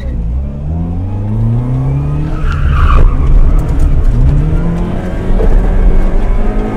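Formula 1000 Nissan Micra rally car accelerating hard from a standing start, heard from inside the cabin. The engine note climbs repeatedly and drops back at each gear change.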